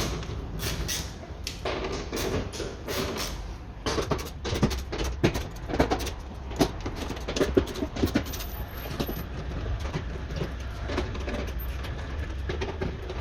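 Irregular metallic clicks and knocks of hand tools and small screws being worked out of a car door's inner panel that carries the window regulator.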